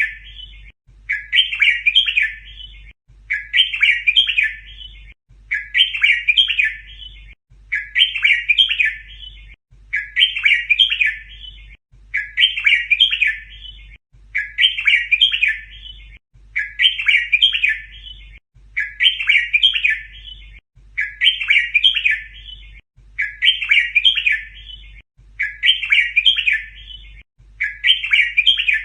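Red-whiskered bulbul song: the same short chirping phrase repeated at even intervals, about every two seconds.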